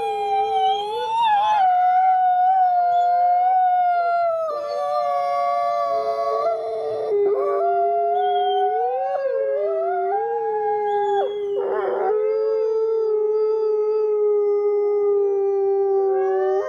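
Wolves howling in chorus: at least two long, drawn-out howls held at different pitches overlap throughout, sliding up or down between notes now and then.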